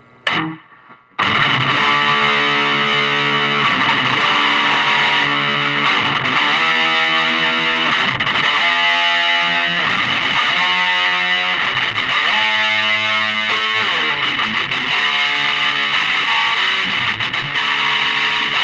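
Music: a distorted electric guitar playing a chord progression, coming in about a second in after a short sliding burst.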